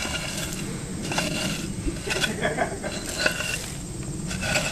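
Wood fire crackling and hissing in an anagama kiln's firebox, with scattered sharp clicks and a few scrapes as a brick is handled at the opening.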